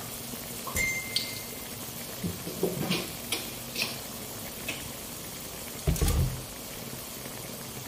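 Chicken simmering in vinegar and its own juices in a metal wok: a steady bubbling sizzle with scattered small pops. A dull low thump comes about six seconds in.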